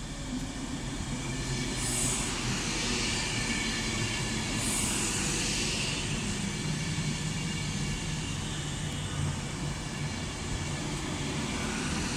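Avanti West Coast Class 390 Pendolino electric train running along the platform: a steady rumble of wheels on rails and traction noise. Two brief high hisses come about two and five seconds in.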